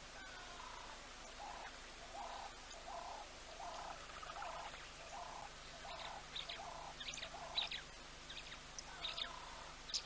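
Wild birds calling. One repeats a short mid-pitched note about every two-thirds of a second, and in the second half other small birds add sharp, high chirps.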